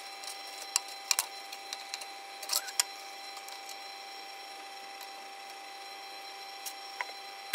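A steady machine hum of several fixed tones, with a few light metallic clicks and taps in the first three seconds as short steel rods are fitted into a steel tube cage on a metal welding bench.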